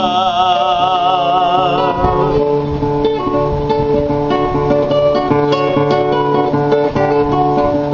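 Acoustic guitar accompaniment to a Spanish-language folk song: a singer's last note is held with vibrato for about the first two seconds, then the guitar plays on alone with plucked notes over a steady bass.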